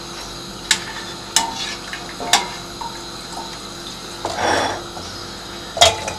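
A metal ladle clinking against a stainless steel pot and colander as boiled goat trotters are lifted out of their broth, with a short splash of dripping liquid about two thirds of the way through.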